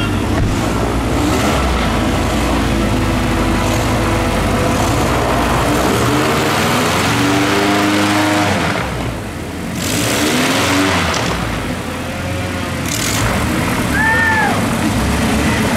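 Airboat engine and propeller running loudly, the engine note rising and falling as it revs up and eases off a few times.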